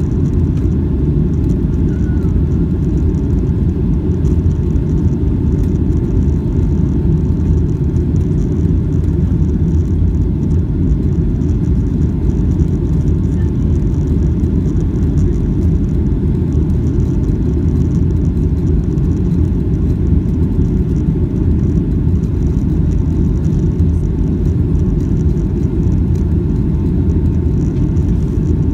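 Boeing 757-200 cabin noise on approach, heard from a window seat over the wing: a steady, loud, low rumble of engines and airflow, with a faint steady whine above it.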